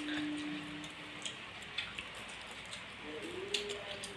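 Faint, scattered small clicks and taps, with a short steady hum during the first second or so.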